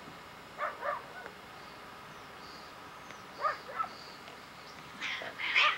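Cats meowing: short calls in pairs about a second in and again around three and a half seconds in, then a louder, harsher outburst near the end.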